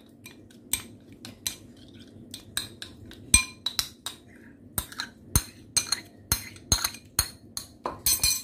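Steel spoon clinking against a small ceramic bowl while stirring yogurt, each stroke a short ringing clink, two or three a second. The clinks come in a quick cluster near the end as the yogurt is scraped out of the bowl.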